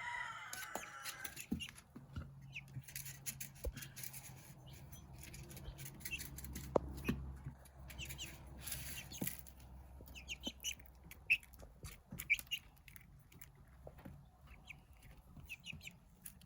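A young mixed-breed chick (Australorp, Light Brahma and Silkie bantam cross) peeping softly, with a few peeps at the start and then scattered short peeps, small clicks and rustles as it moves about. A faint steady low hum lies underneath.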